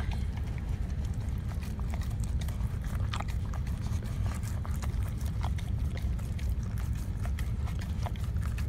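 Golden retriever lapping corn soup from a hand-held cup: many quick, wet licks and clicks scattered throughout, over a steady low rumble.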